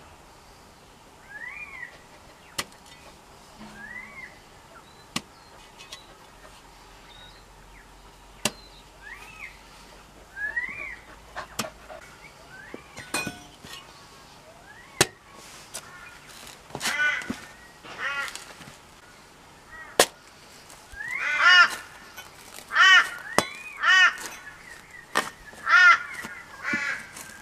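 Crows cawing over and over, the calls getting louder and more frequent in the second half. Between them come scattered sharp knocks of a steel spade striking hard, dry ground as a post hole is dug.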